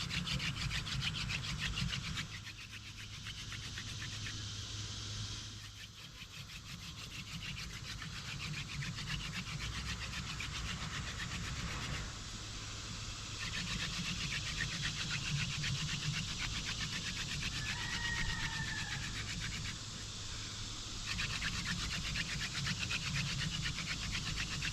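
Hand-drill friction fire: a yellow crownbeard spindle spun rapidly back and forth between the palms, grinding into a maple fireboard. A fast, rasping rubbing that eases and picks up again every few seconds as the hands work down the spindle; the board is already smoking as the drilling builds toward an ember.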